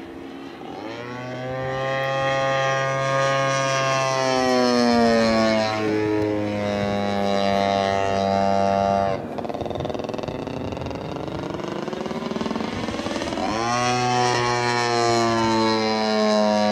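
Engine and propeller of a Katana plane flying overhead. The throttle opens about a second in and the pitch bends as the plane manoeuvres. The power is cut sharply about nine seconds in, and it is opened up hard again about three and a half seconds later.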